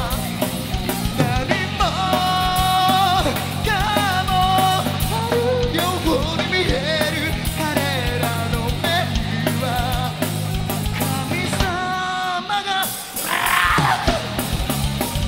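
Live rock band playing: distorted electric guitars, bass and drums under a sung lead vocal. About twelve seconds in the bass and drums drop out for a moment.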